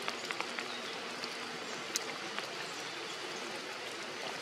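Steady rain falling on forest foliage, with a few sharp drops ticking on leaves.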